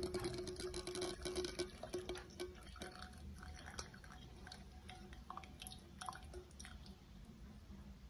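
Hot milk pouring from a pan through a mesh tea strainer into a steel bowl: a faint trickle for the first couple of seconds that dies away to drips, with a few light clicks after.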